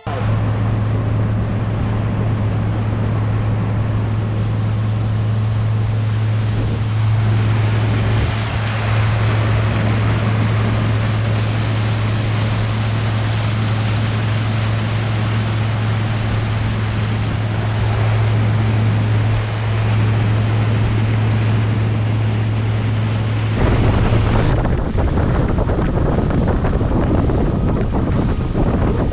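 Boat's outboard motor running at a steady pitch as the skiff travels, over rushing wind on the microphone and water noise. The motor hum drops out near the end, leaving only buffeting wind and water.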